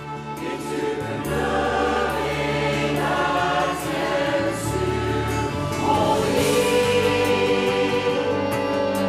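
Mixed choir of men's and women's voices singing together in harmony, with instrumental accompaniment holding low notes underneath. The voices come in about half a second in and grow louder over the next second or so.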